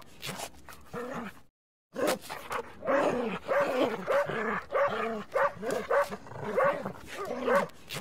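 Dogs barking and yipping in quick succession, about two or three short calls a second, each rising and falling in pitch. There is a brief dead silence about one and a half seconds in.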